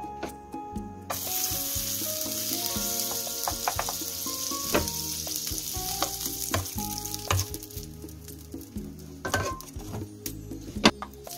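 Slices of white bread frying in melted margarine in a nonstick pan, sizzling steadily from about a second in. A wooden spatula knocks and scrapes against the pan several times as the slices are pressed and turned. The sizzle thins out near the end.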